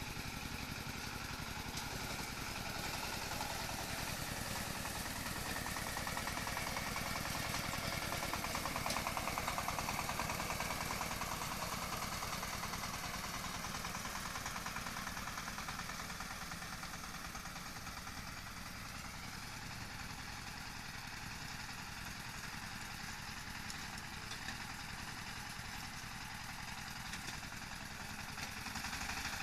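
An engine running steadily without stopping, growing a little louder about a third of the way in and then easing back.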